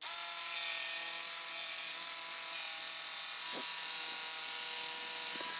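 Handheld jigsaw running steadily, trimming a blade's-thickness sliver off the edge of a 1x8 pine board. An even motor whine of constant pitch that starts right away and stops just before the end.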